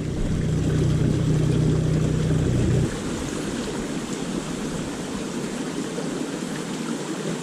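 River water running with a steady rush. For the first three seconds a low steady hum lies under it, and it cuts off abruptly.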